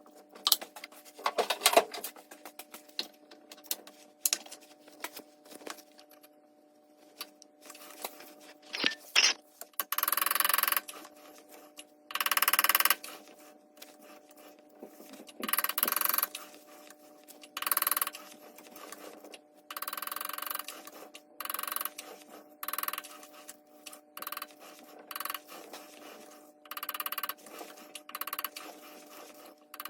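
Metal clinks, knocks and rattles of a brass workpiece and tools being handled while it is re-mounted in a lathe, with short scraping bursts about a second long and a faint steady machine hum underneath.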